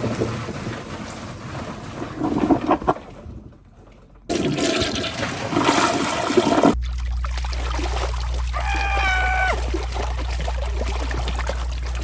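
Toilet flushing: rushing, swirling water in bursts. A steady low hum joins it in the second half, with a brief high-pitched tone about nine seconds in.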